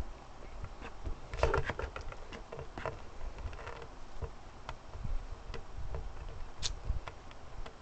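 Hard plastic toy parts of a Beywheelz spinning top clicking and tapping against each other as they are handled and fitted together by hand, with a quick cluster of clicks about a second and a half in.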